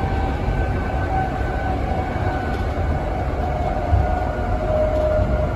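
Transperth A-series electric multiple unit heard from inside the carriage while running: a steady low rumble of wheels on rail with a thin whine that dips in pitch near the end, and a single bump about four seconds in.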